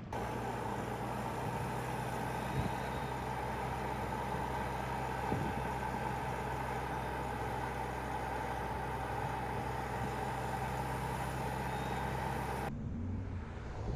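A car running steadily: a low engine hum with a steady higher road or cabin noise over it, and two light clicks a few seconds apart. The sound cuts off suddenly near the end.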